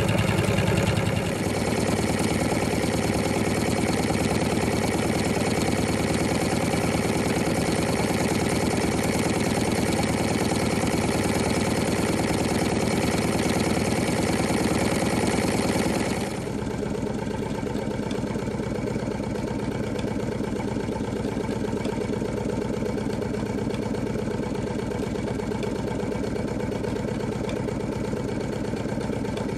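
Carette toy hot air engine running steadily, its piston, crank and flywheel linkage making a rapid, even mechanical clatter. The sound shifts abruptly about a second in and again about halfway through, where it becomes somewhat quieter.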